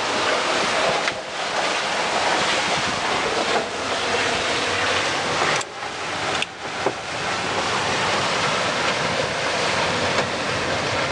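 Wind buffeting the microphone over the rush of sea water along the hull of a sailboat under sail in choppy water: a loud, steady rush that dips briefly twice about halfway through.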